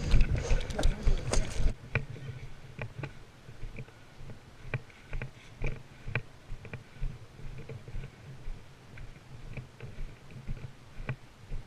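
Rustling and scuffing from a player on the move for about the first two seconds, then a string of irregular sharp clicks or snaps spaced roughly half a second to a second apart.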